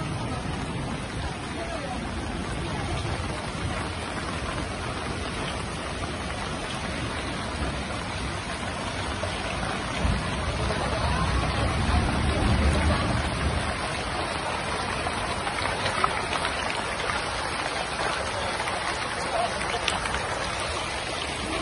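Muddy flash-flood water rushing down a paved street, a steady noise of running water that swells with a deeper rumble between about ten and fourteen seconds in.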